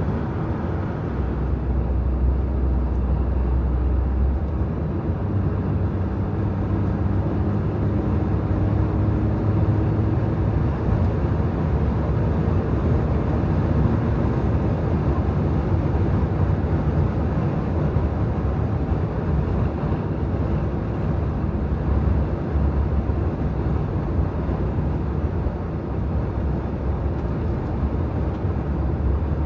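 Steady driving noise of a car cruising on a highway: tyres on asphalt and rushing air, with a low engine and drivetrain hum.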